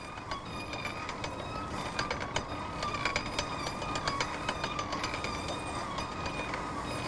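Steady mechanical clatter of a paddle steamer's steam winch hauling in a steel cable: a continuous hiss and rumble with many irregular sharp clanks and a faint wavering whine.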